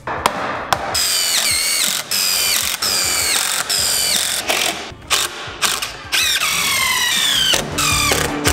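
A power drill run in short bursts, about one a second, its whine falling in pitch during each run, with sharp clicks between runs. This fits screws being driven home.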